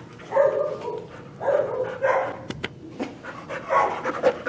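An excited dog vocalizing in several drawn-out calls of steady pitch, each about half a second long. Two sharp clicks come about halfway through.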